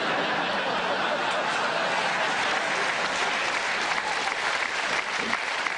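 Audience applauding steadily after a punchline.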